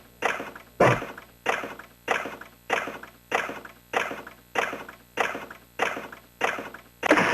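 Retro pachinko machine sound effect: a struck, chime-like tone repeating evenly about every two thirds of a second, each one fading before the next, around eleven times. Near the end the machine's music starts.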